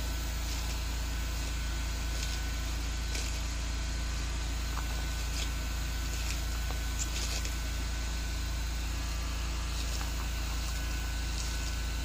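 Steady low hum from an unseen source, with faint crisp crunches now and then as a sulcata tortoise bites into romaine lettuce.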